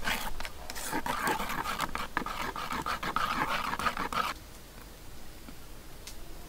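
Metal tongs stirring a thin batter in a coconut-shell bowl: rapid wet scraping and clicking against the bowl, which stops about four seconds in, leaving only a few faint ticks.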